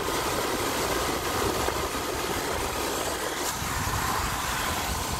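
Dometic Penguin II rooftop RV air conditioner running with its cover off: the fan and the compressor hum steadily. This shows the unit is working again on a new dual run capacitor.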